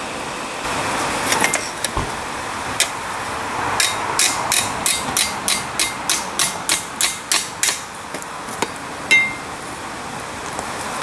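Hand hammer striking a heated steel patch plate on a Peter Wright anvil, bending the plate over the anvil's edge. A few scattered blows come first, then a steady run of about three blows a second, and one louder blow near the end rings on.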